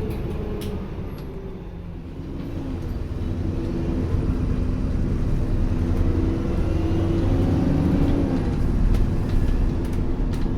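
Alexander Dennis Enviro400 Trident double-decker bus heard from on board, its diesel engine rumbling and pulling away about two seconds in. Whining tones rise and fall as it accelerates: the whine that earns these buses the nickname 'Hoover'.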